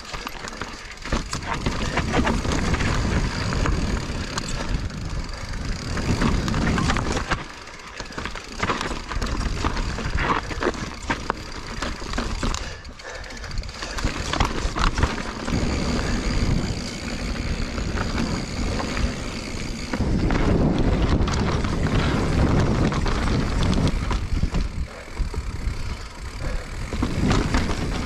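Full-suspension mountain bike ridden over rocky dirt singletrack and slickrock, heard from a GoPro on the rider: wind buffeting the microphone, tyres crunching over dirt and stone, and the bike's chain and frame rattling and knocking over bumps. The rumble swells and eases as speed changes.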